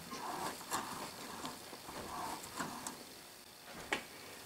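High-speed steel threading die in a hand-turned die stock cutting a thread on a rod, with short scraping, creaking strokes as the handles are worked round and a few clicks. A sharp click comes near the end.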